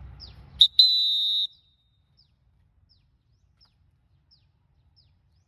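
Referee's whistle giving the futsal timeout signal: a quick blip, then one steady blast of under a second that cuts off sharply.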